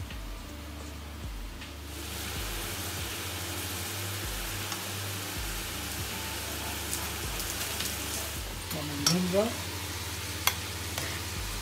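Pan of dorade fillets wrapped in Parma ham simmering in a white-wine sauce on the hob, sizzling steadily, louder from about two seconds in. A few light clinks of a utensil near the end.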